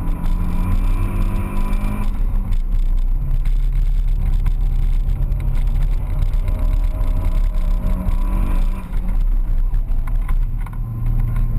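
Car engine heard from inside the cabin while being driven hard through corners, its note dropping about two seconds in and climbing again near the end, over road and wind noise.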